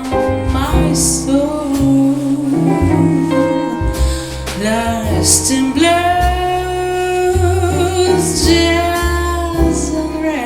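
A woman singing a jazz ballad in long held notes, with vibrato on some of them. She is accompanied by a jazz band of double bass, keyboards and drums, the bass moving to a new note about once a second.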